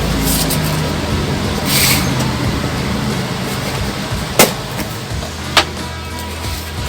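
Cardboard packaging being opened and handled: a brief rustle about two seconds in, then two sharp clicks, over a steady low hum.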